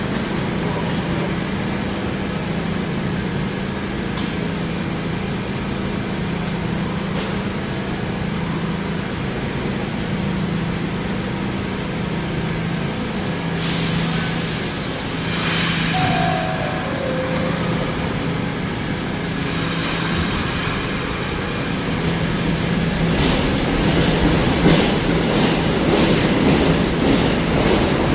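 New York City subway train running in the station, a steady rumble and hum. About halfway through comes a burst of hiss lasting a few seconds, followed shortly by a short falling tone. Scattered clicks of the wheels come in the last few seconds.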